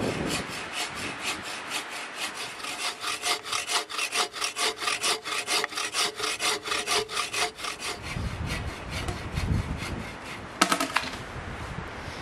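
Hand saw cutting through a log, steady back-and-forth strokes at about four a second that stop about eight seconds in. A single short, sharp sound follows near the end.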